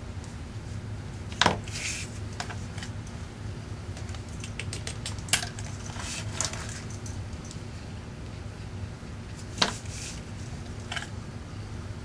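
Handling of paper craft materials on a desk: a handful of sharp, light taps and clicks, the loudest two about a second and a half in and near the end, over a steady low hum.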